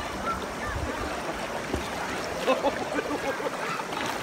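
Shallow river water running and splashing around a dog swimming against the current.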